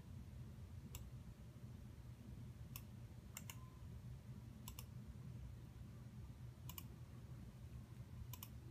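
Computer mouse buttons clicking about six times, most of them in quick pairs, over a faint low hum.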